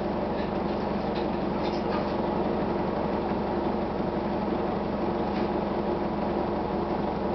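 Detroit Diesel Series 50 four-cylinder diesel engine of a Gillig Phantom transit bus running steadily, with a few faint rattles in the first couple of seconds.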